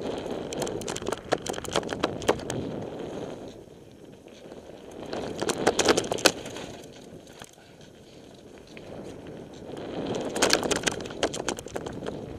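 Mountain bike descending a rough dirt forest trail: tyres running over the ground and the bike clattering and rattling over bumps. The rattling comes in three rough stretches, with smoother, quieter running between them.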